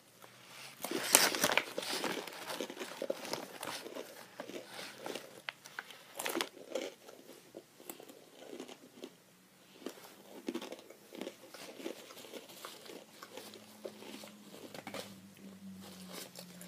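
Crunching and chewing of a spicy rolled tortilla chip, with some crinkling of the plastic chip bag. The loudest crunches come about a second in and again around six seconds.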